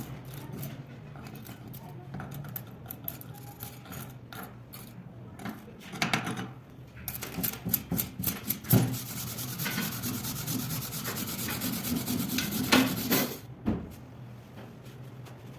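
Metalworking on steel: scattered scraping and ticking, then about six seconds of dense, even crackling that stops suddenly, over a steady low hum.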